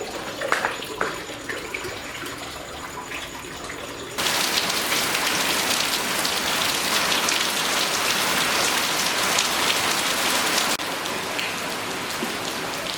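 Monsoon downpour of heavy rain, with a few knocks at first. About four seconds in it suddenly becomes much louder, then drops back a little near the end.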